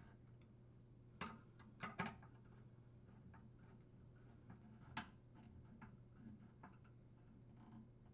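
Faint clicks and ticks of a flathead screwdriver working the mounting bracket screws of a garbage disposer mounting assembly as they are tightened, the clearest a little after a second in, twice around two seconds, and at five seconds.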